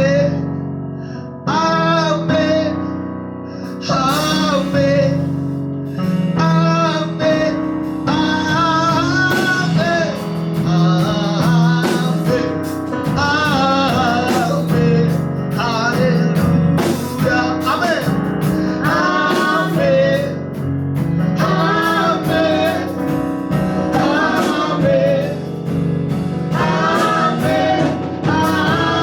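A worship band playing a gospel song, with male and female voices singing over keyboard and guitar.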